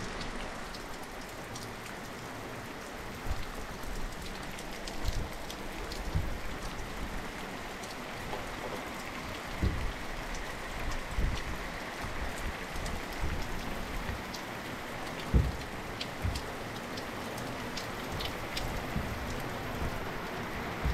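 Steady rain falling on a surface, with many small sharp drop taps and a few low thuds, the heaviest about fifteen seconds in.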